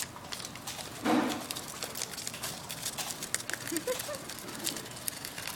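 Lovebird biting and tearing newspaper with its beak: a run of small, crisp paper clicks and crackles, with a louder crackle about a second in.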